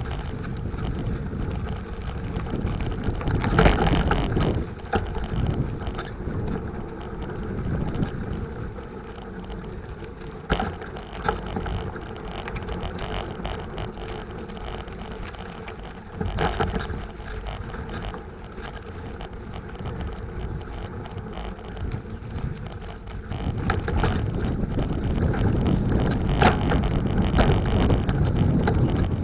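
Bicycle riding noise: a steady rush of wind and rolling sound, with a few sharp rattling knocks from bumps.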